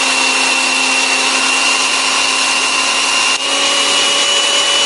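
Electric food chopper motor running at speed, its blades pureeing blocks of white tofu into a smooth paste. A steady high whine rides over the whirring, with a brief dip about three and a half seconds in, after which the whine sits slightly higher.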